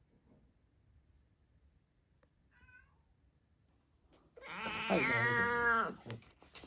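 Black-and-white domestic cat meowing: a faint short meow about two and a half seconds in, then a loud, long, drawn-out meow whose pitch slides down toward its end.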